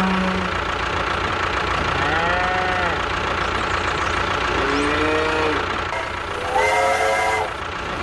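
Cows mooing, three drawn-out calls a couple of seconds apart, over a steady engine drone.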